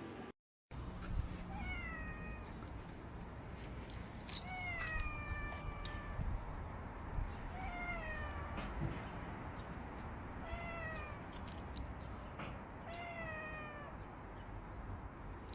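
Cat meowing repeatedly, about five meows one every few seconds, each meow falling in pitch.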